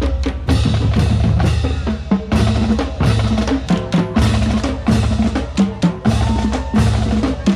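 Marching band playing its school fight song: bass drums and snare drums beat steadily and loudly under brass and saxophone notes.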